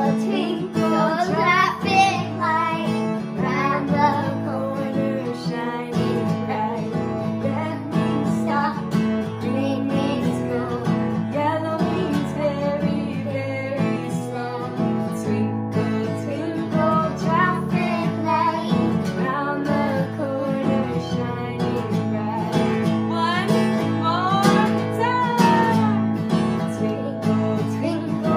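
Acoustic guitar strummed steadily, with a woman and a young girl singing a children's song over it.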